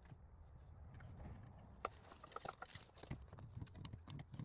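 Galvanized pipe fittings being picked up and handled: scattered light clicks and knocks, with a sharp click about two seconds in followed by a few short metallic pings.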